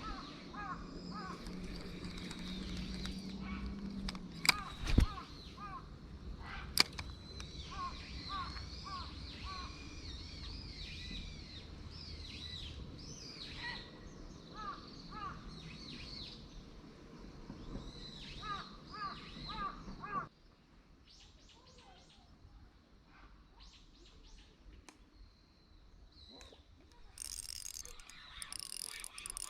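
Birds calling by a lake: short calls repeated in runs of three or four, with higher chirping calls above them. A few sharp knocks come in the first seven seconds, and the sound drops off abruptly about twenty seconds in.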